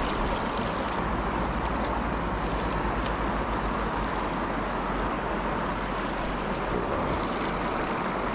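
Steady rush of river current running over shallow rocky riffles.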